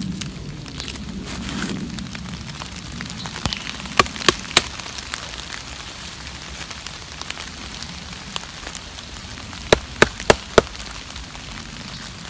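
ESEE Junglas machete blade knocking against a fallen birch log while stripping its bark: sharp clicks in two quick runs, three about four seconds in and four near the ten-second mark, over a steady hiss of rain.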